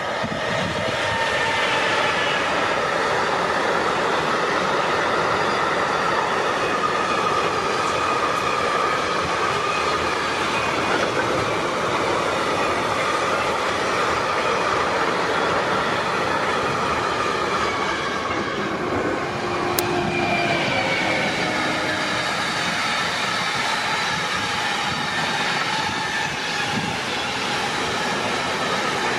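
Freight wagons rolling past at close range, a steady rumble and rattle of wheels on rail with thin high squealing tones from the wheels. About two-thirds of the way through the sound switches abruptly to a second freight train of container flat wagons rolling by.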